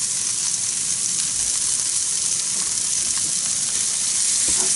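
Tuna steaks sizzling with a steady hiss on a hot volcanic stone plate over a charcoal grill, as ginger-and-honey vinegar is poured over them to deglaze.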